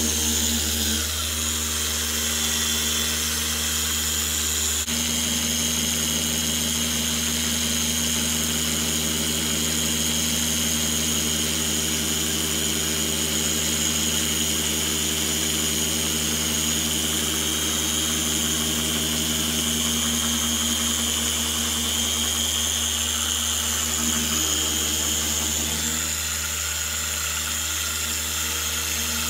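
Dual-action polisher running steadily with a microfiber cutting disc, buffing a plastic headlight lens with polishing compound: a steady motor hum with a high whine, its tone shifting a little about 23 seconds in as the pad is moved and pressed.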